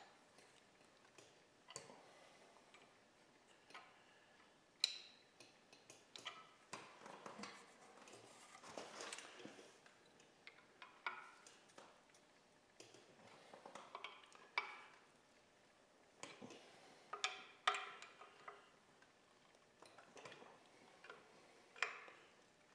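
Faint, scattered metal clicks and ticks of wrenches tightening the manifold clamp nuts, crushing the new manifold gaskets, with a few short runs of quick ratchet clicking.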